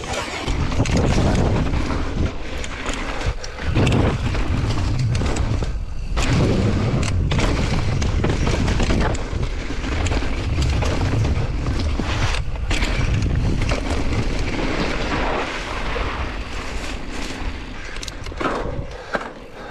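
Mountain bike descending fast on a loose dirt trail: wind buffeting the microphone in a heavy rumble over the rattle and crunch of the tyres and bike, with a few brief lulls.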